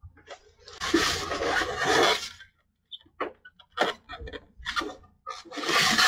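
A cardboard box and its styrofoam packing scraping and rubbing together as the packed item is worked out of the box. There are two long scraping stretches, the second near the end, with knocks and taps between them.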